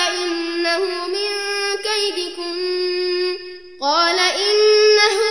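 Male Quran reciter chanting in melodic tajweed style, holding long, ornamented notes. The voice breaks off briefly for a breath about three and a half seconds in, then resumes.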